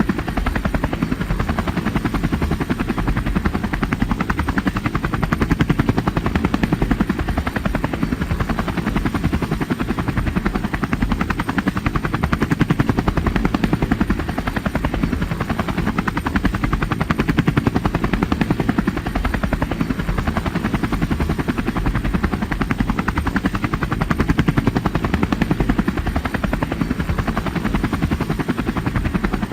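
Helicopter flying, its rotor blades beating in a fast, steady chop.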